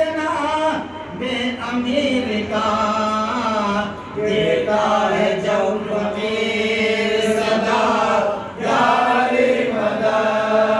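Men's voices chanting together in a devotional recitation, in phrases of long held, wavering notes with brief breaks between them.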